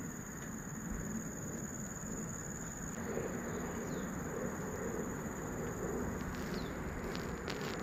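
Outdoor garden ambience: a steady background hiss with a constant high-pitched insect drone, and a few short bird chirps in the second half.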